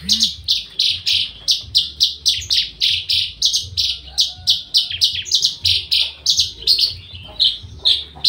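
Javan bush lark (branjangan) singing non-stop: a fast, unbroken run of short, high, chirping notes, about four a second.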